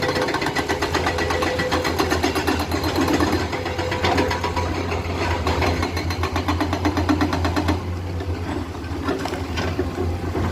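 Komatsu hydraulic excavator's diesel engine running under work, with a fast, even mechanical clatter over a steady low hum.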